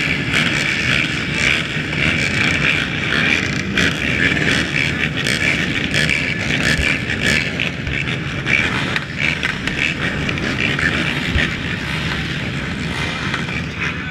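Race ATV engines idling around the start line, a steady mechanical drone.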